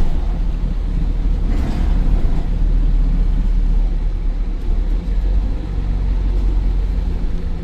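Optare Versa bus's Mercedes-Benz OM934 5.1-litre four-cylinder diesel running with a steady low rumble. A brief rush of noise comes about a second and a half in.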